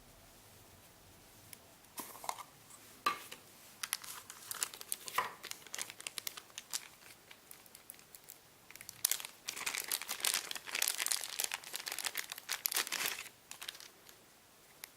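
Hands crinkling and rustling thin plastic material, with scattered small clicks starting about two seconds in. The crinkling is densest in the second half and stops shortly before the end.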